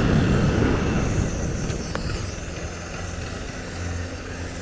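Honda CG 160 Fan's single-cylinder four-stroke engine running at low speed with rushing air on the helmet microphone, getting quieter over the first three seconds and then holding steady.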